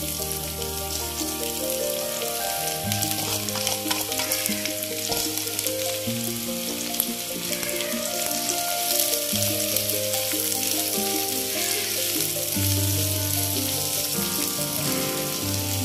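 Sliced onions sizzling steadily in hot mustard oil in a nonstick frying pan while a spatula stirs them, over soft background music.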